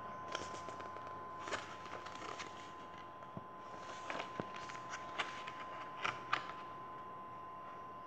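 A paperback storybook being handled and its pages turned: scattered soft paper rustles and light taps, with a couple of sharper ones about six seconds in.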